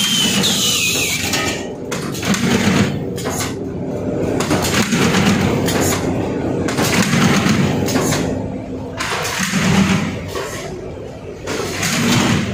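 Automatic carton folder-gluer running, its belts and rollers carrying corrugated cardboard sheets: a hum with uneven rattling that rises and falls in loudness. There are two brief falling squeals near the start.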